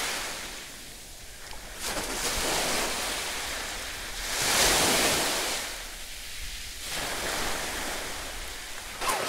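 Sea surf washing in slow swells, with splashing from a swimmer's strokes and, near the end, from feet running through shallow water.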